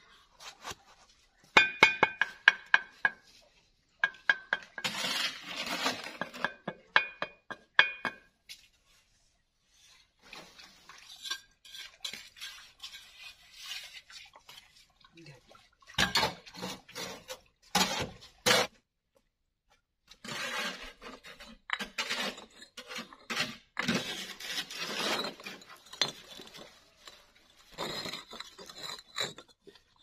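Hollow clay bricks clinking and knocking as they are set down and laid in a line of mortar, in irregular bursts of sharp clinks, some of them ringing briefly.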